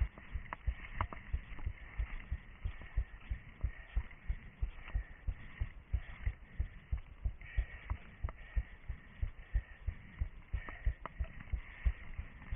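A runner's footsteps in forest terrain, heard through a head-mounted camera as a steady rhythm of dull thuds, about three a second, over a steady higher hiss.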